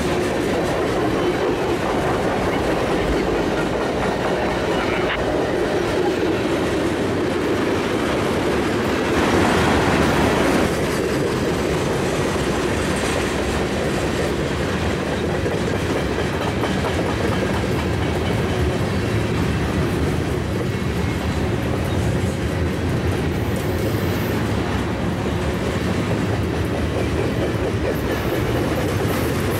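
A long mixed freight train's cars rolling past close by: steady noise of steel wheels running on the rails, a little louder for about a second and a half some nine seconds in.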